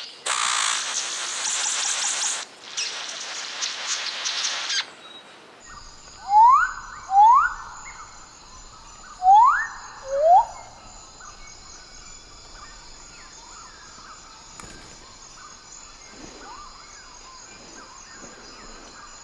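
Forest bird giving four loud rising whistled calls in two pairs over a steady high insect chorus, after an even hiss that stops about five seconds in.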